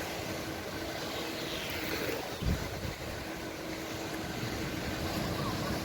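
Beach ambience of wind and surf noise, with a faint steady hum of a distant motor and a low thump about two and a half seconds in.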